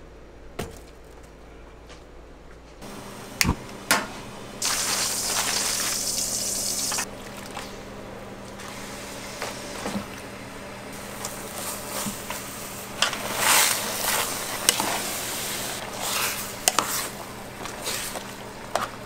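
Chopped kimchi sizzling as it is stir-fried in a pan, with repeated scraping and knocking as it is stirred. A loud hiss lasts about two seconds around five seconds in.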